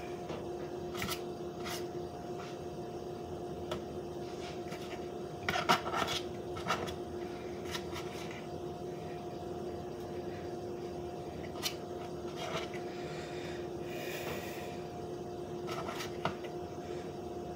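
A metal fork scraping and tapping against a paper plate as butter is worked off it, giving scattered light clicks and scrapes with a louder cluster about a third of the way in. A steady hum runs underneath.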